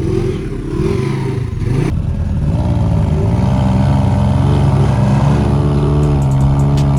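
Side-by-side off-road vehicle engine revving up and down. About two seconds in the sound changes abruptly, and the engine then runs at a steadier, higher speed that climbs slowly.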